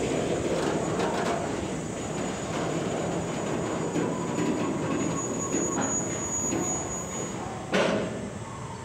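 Container freight train's loaded flat wagons rolling past close by: a steady rumble and rattle of wheels on rail with a few sharp clacks, and one loud bang near the end.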